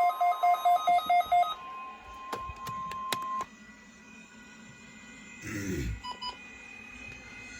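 Weather radio receiver sounding a weekly-test alert: rapid pulsed beeping, about five beeps a second, over a steady warning alarm tone. The beeping stops about a second and a half in, and the alarm tone cuts off about three and a half seconds in, after two sharp clicks. A short double beep follows near the end.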